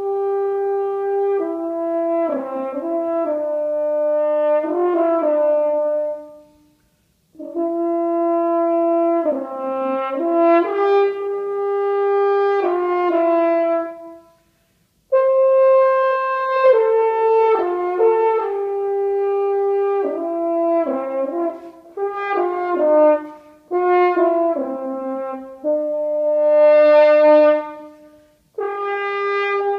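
Unaccompanied French horn playing a slow solo melody of held and moving notes, in three phrases separated by short pauses for breath.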